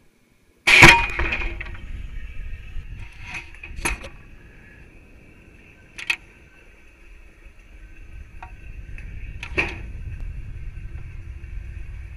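Sound carried through the Stiga rocket's structure to its onboard camera at high altitude: a sudden loud bang about a second in, then fading rattles, three sharp clicks and a low rumble that builds toward the end, over a steady thin electronic whine.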